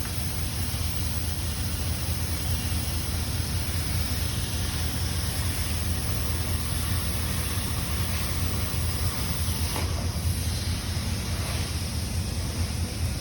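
Flagler buttonpunch power flanger running steadily, a low hum with hiss as sheet metal is pulled through its rolls.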